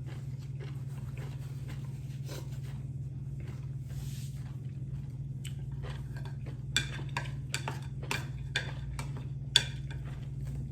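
Close-up chewing and crunching of food in the mouth, with a run of sharp, crisp crunches in the second half, over a steady low hum.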